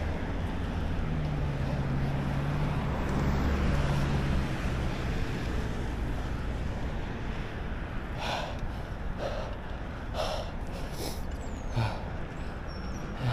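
Road traffic noise with a low engine hum that fades after about four seconds, then half a dozen short breathy puffs in the second half.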